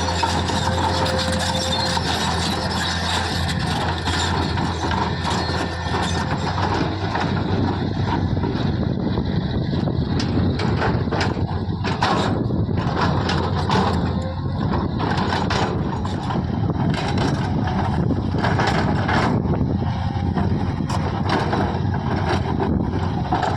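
Diesel engine of a heavy earthmoving machine running steadily, with frequent short knocks and clanks that come more often in the second half.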